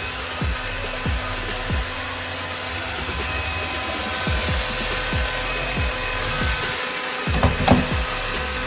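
Electrolux Ergorapido ZB3501 cordless stick vacuum running, its floor nozzle brushing over a wooden floor, with a couple of louder bumps near the end. Background music with a steady beat plays alongside.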